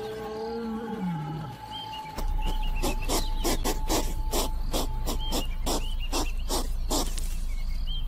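Lion growling low, with a fast series of sharp clicks, about four a second, between roughly three and seven seconds in.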